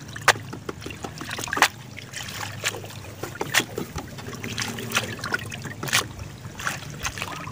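Water splashing and trickling as perforated plastic baskets of gourami fingerlings are lifted and dipped in tubs of water, with a sharp splash about once a second over a steady low hum.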